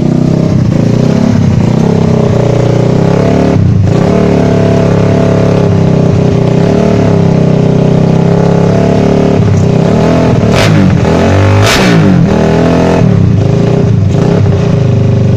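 Suzuki Satria FU's single-cylinder four-stroke engine, ported and bored out to 155 cc, running loud and steady while being tuned, with several quick throttle blips in the second half.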